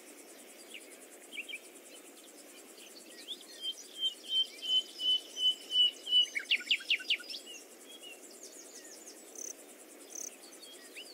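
Birds chirping over faint steady background noise. A run of repeated short notes about a third of the way in is followed by a quick series of falling whistles, then a few high chirps.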